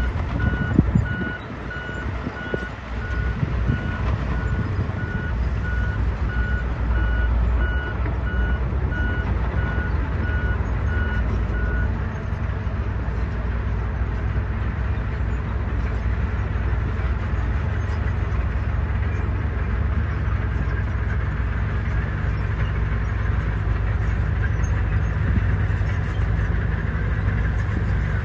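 Heavy diesel engine of construction machinery working steadily, with a reversing alarm beeping in an even, high-pitched series that stops about twelve seconds in. A louder burst of noise about a second in.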